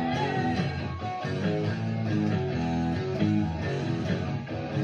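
Rock music led by guitar, a quick run of plucked notes.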